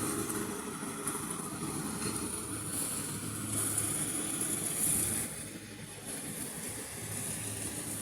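Maxxi J rice combine harvester running steadily, its engine humming under the noise of the working machinery. The level drops a little about five seconds in.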